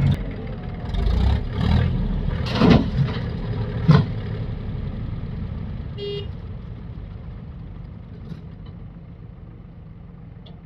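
A heavy diesel machine's engine running, with a few sharp clanks in the first four seconds, then the rumble fading away.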